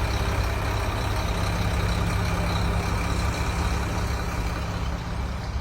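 Heavy engine running steadily: a low rumble with a constant hum, easing off slightly near the end.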